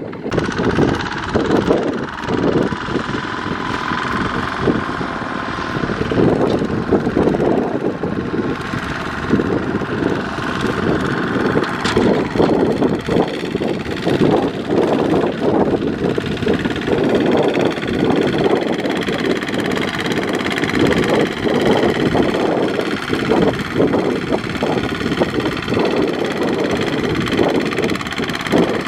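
Kubota ZT155 single-cylinder diesel engine on a two-wheel power tiller running steadily under load as it hauls a trailer of rice sacks through mud.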